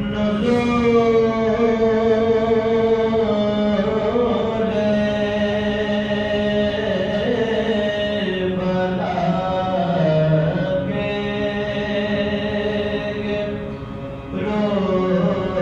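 Soz, a Shia elegiac lament, chanted unaccompanied by men's voices in long held notes that slide slowly up and down, with a short break for breath about 14 seconds in.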